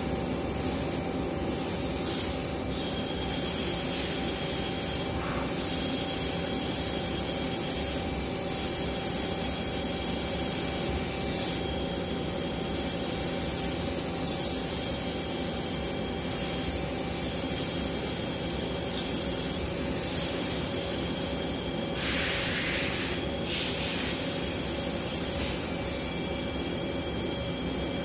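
Okuma L370 CNC lathe running, a steady hiss under several whining tones that start and stop every few seconds, with a brief louder hiss a little over twenty seconds in.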